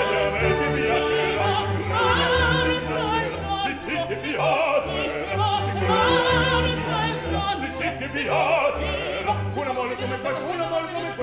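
Opera music: an orchestra playing with singing voices over it, in a lively stage duet.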